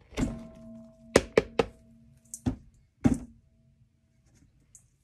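A utensil knocking about six times against a metal mixing bowl, with a quick run of three near the middle, as mango butter is scooped out or knocked off during weighing. The bowl rings on with a steady hum after the knocks.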